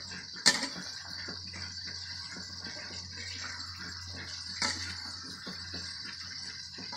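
Metal ladle stirring and scraping in a wok of frying chili-tomato sauce, with small ticks and a sharp clink about half a second in and another just before five seconds, over a steady high-pitched background hiss.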